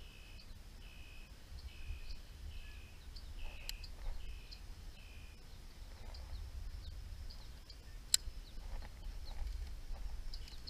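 Quiet marsh ambience: a faint steady high insect drone, and a short call repeated about every half second for the first five seconds or so, over a low wind rumble on the microphone. A single sharp click about eight seconds in.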